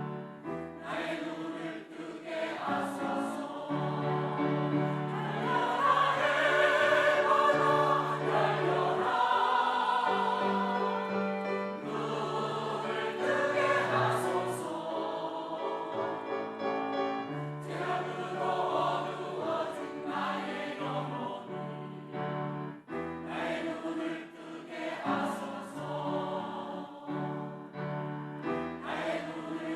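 Church choir singing an anthem together, with sustained notes; it swells to its loudest about six to eight seconds in, then eases back.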